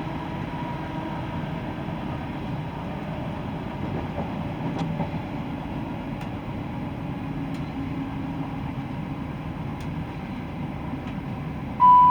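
Class 170 Turbostar diesel multiple unit heard from inside, running at speed: a steady rumble of the underfloor diesel engine and wheels on rail. Near the end the on-board announcement chime sounds loudly, a higher tone then a lower one.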